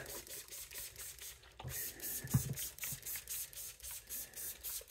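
Trigger spray bottle spraying water in a rapid, even series of short hissing squirts, several a second, wetting a microfibre cloth, with a soft bump or two about halfway through.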